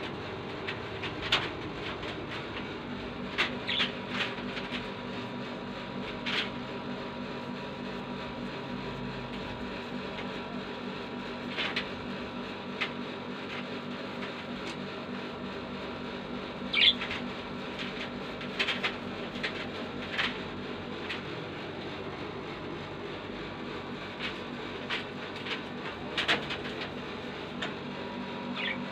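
A caged bird giving short, scattered chirps, a dozen or so spread irregularly with the loudest in the middle, over a steady hum.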